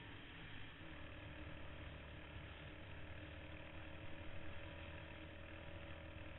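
ATV engine running at a steady pitch while the quad rides along a dirt trail, heard from a helmet-mounted camera.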